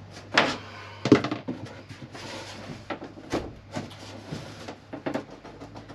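Thin luan plywood panel being pried up off its staples: a run of wooden creaks, cracks and knocks, the two loudest about half a second and a second in, with a short scrape a little later.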